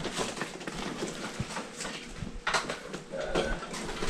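Items being handled and shifted around in a box: a run of light clicks, knocks and rustling.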